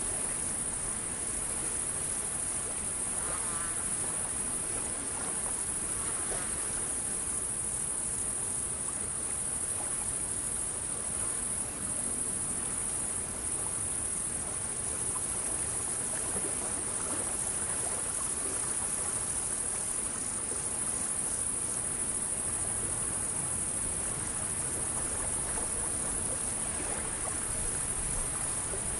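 Crickets chirping in a steady, high-pitched chorus that never lets up, over a soft even hiss.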